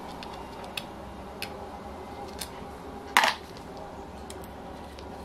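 Light metallic clicks of a hex key working the cylinder head screws of an OS FF-240 Pegasus four-cylinder glow engine, with one louder metal clink about three seconds in.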